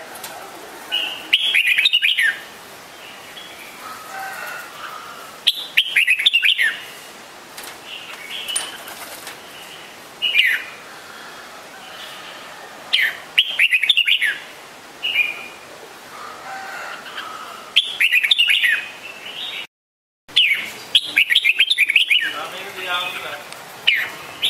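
Red-whiskered bulbul calling: loud bursts of quick, bubbly chirps about every four seconds, with softer single calls in between. The sound cuts out briefly about twenty seconds in.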